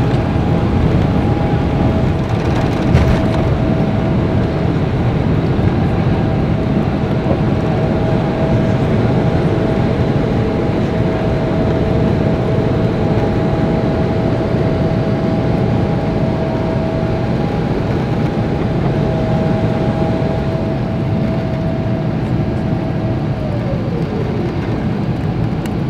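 Boeing 777-200 cabin noise during liftoff and initial climb: the twin engines running at takeoff thrust under a steady rushing noise, with a steady whine on top. There is a single knock about three seconds in. Near the end the whine drops in pitch.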